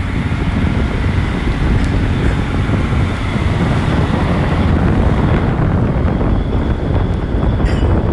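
Wind buffeting the microphone over the steady low rumble of boat engines and the wash of the sea.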